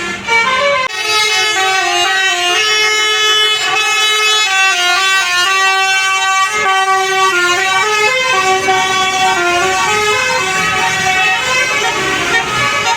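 Indonesian bus 'basuri' telolet horn, a multi-trumpet air horn, playing a tune: a string of held notes stepping up and down in pitch, with a brief break just under a second in.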